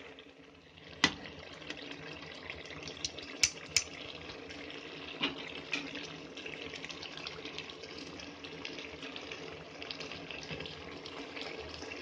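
Vegetable curry sizzling and bubbling in a metal pot, a steady crackle dotted with small pops. A few sharp clicks stand out, the loudest about a second in and two close together near four seconds.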